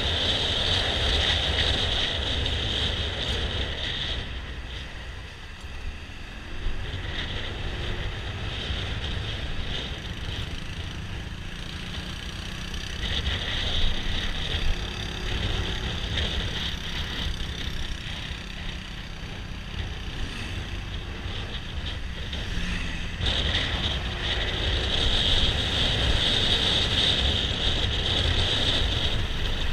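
Wind rushing over a GoPro's microphone on a moving scooter, with a faint scooter engine hum and road noise underneath. It is louder for the first few seconds, eases off through the middle, and rises again about two thirds of the way through.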